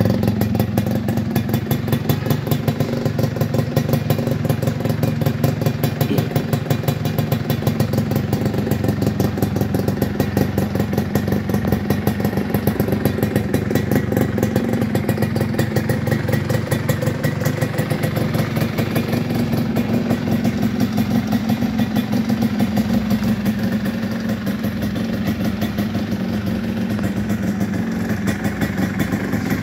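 Yamaha F1ZR's two-stroke single-cylinder engine running steadily, with little change in speed, through an opened-up "belahan" aftermarket exhaust, giving a crisp, rapid popping exhaust note.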